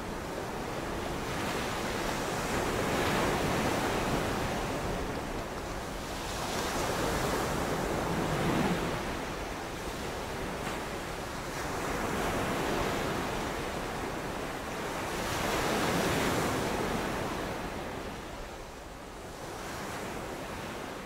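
Sea waves washing, a steady rush that swells and eases in slow surges every three to four seconds.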